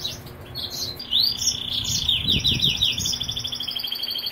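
Caged European goldfinches twittering and singing: scattered high chirps, then a fast rolling trill that starts about a second in and keeps going.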